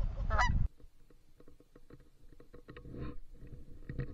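Canada geese honking. First one loud honk over a low rumble of wind on the microphone; after the rumble stops, a flock honks at a distance in short, scattered calls.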